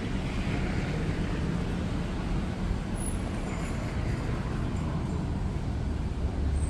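Road traffic noise: a steady low rumble of passing vehicles, with a hiss that swells in the first second and fades over the next few as a vehicle goes by.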